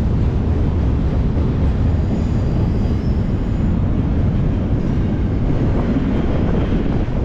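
Moving freight train, a steady low rumble.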